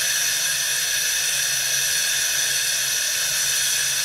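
Hancock inspirator steam injector running, a steady high hiss as it forces feed water into the boiler under steam pressure.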